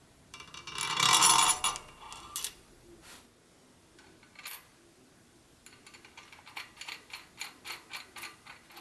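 Metal bicycle parts and tools being handled: a scraping slide of metal on metal, a few separate clicks, then a run of quick ratchet-like clicks, about five a second, through the second half.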